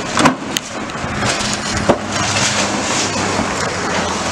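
John Deere excavator demolishing a brick building: its diesel engine runs under the work while timber and brick debris knock and crash. Sharp knocks come about a quarter second in and again near two seconds, then a steady clatter of breaking debris.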